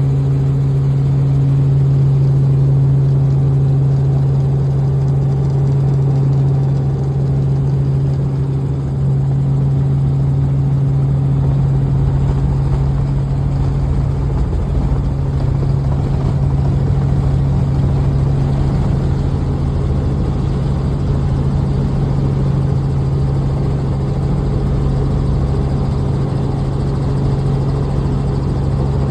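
Helicopter heard from inside the cabin, running with a loud, steady, low humming drone over a rumble.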